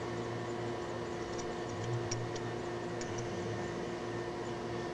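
Steady background hum with a few faint, light metallic ticks scattered through it as a Holley needle and seat valve is turned out of the float bowl by hand.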